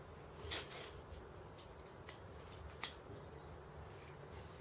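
Faint clicks of a screwdriver turning the worm screw of a steel hose clip, tightening it down on a hose: a few separate clicks, the loudest about half a second in.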